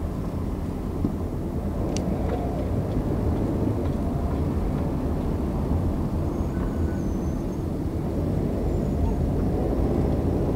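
Car engine and tyre noise heard from inside the cabin: a steady low rumble while driving slowly in traffic.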